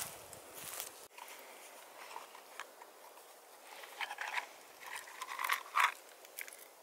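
A small hard plastic case being handled and opened, and the metal chain of a pocket chain saw clinking and rattling as it comes out: short clicks and rattles in two bunches, the loudest near the end.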